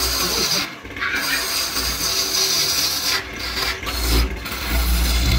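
Wood lathe turning a spinning wooden vase: a hand-held turning tool scraping and cutting the wood, a steady rasping noise over the low hum of the lathe motor. The cutting noise drops out briefly about a second in and twice a little after three seconds in, where the tool comes off the wood.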